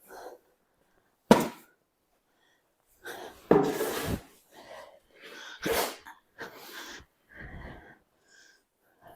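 A few short, sharp nasal blasts like sneezes or snorts. A sudden one comes about a second in, a longer, louder one near four seconds, and another a little later, with weaker breathy puffs between.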